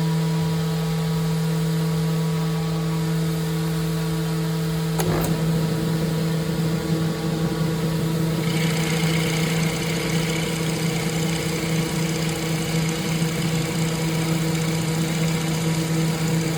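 Powermatic drill press motor running with a steady hum. There is a brief click about five seconds in, and a higher whine joins about halfway through.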